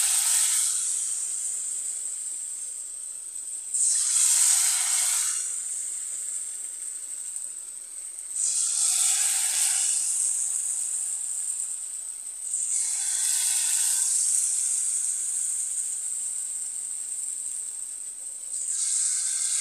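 Hot oil sizzling as batter-coated susiyam balls deep-fry in a pan. The sizzle surges loudly about every four seconds, as each new ball goes into the oil, and settles back to a steady hiss in between.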